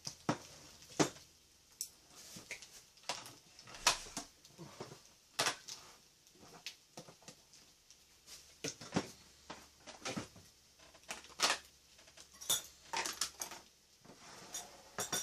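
Chopsticks and tableware clicking and knocking against a grill pan of pork belly and small side-dish bowls: irregular, scattered clinks.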